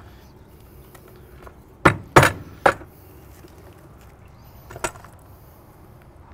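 Hard baked salt crust being broken apart by hand, giving sharp cracks and clicks of brittle chunks. Three come close together about two seconds in, and another near five seconds.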